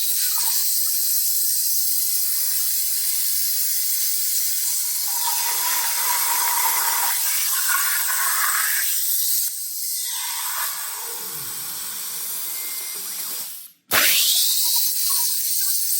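CNC plasma cutter torch cutting quarter-inch hot-rolled steel plate: a steady, loud hiss of arc and air. The hiss cuts out about fourteen seconds in and starts again at once.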